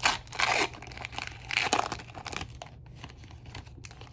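Foil trading-card pack being torn open, with the wrapper crinkling in a few short bursts, the strongest at the start and about a second and a half in.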